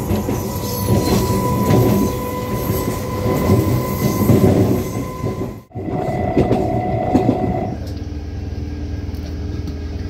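Old passenger train running, heard from its open doorway: rumbling and rattling of wheels on the rails with a steady whine. After a sudden break near the middle, the sound turns into a steadier, lower hum near the end.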